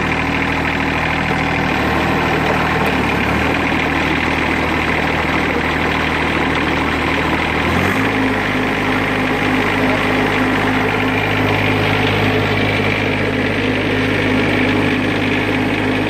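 John Deere 1025R subcompact tractor's three-cylinder Yanmar diesel running steadily with the PTO engaged, driving a front-mounted snowblower. About halfway through, the engine note steps up to a higher pitch and holds. With the PTO/reverse safety switch bypassed, the PTO stays on rather than cutting out.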